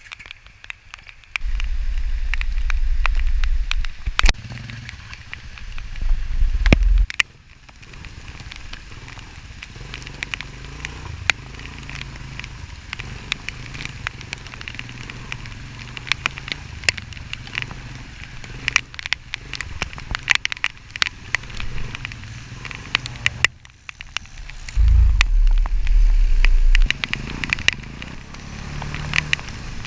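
An ATV ride through a GoPro: a low engine drone throughout under constant crackling and sharp ticks, with two loud low rumbles, one near the start and one near the end.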